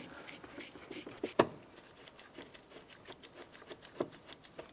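Hand tool driving the lower door panel screws into a car door: irregular light clicking and ticking, with a sharper click about a second and a half in and another near the end.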